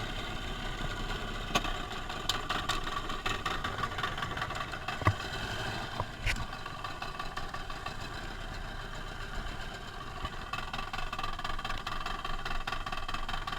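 A jukung's boat engine running steadily, with a few short knocks.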